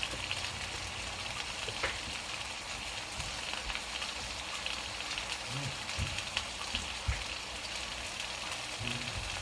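Breaded chicken frying in a pan, a steady sizzle and crackle, with a few light clicks; the chicken is still raw in places and not yet done.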